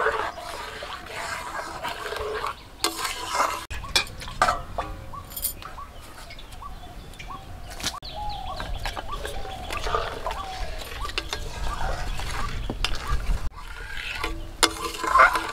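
Spatula stirring and scraping around a steel kadai of melting sugarcane jaggery, with metal clinks and several sharp knocks.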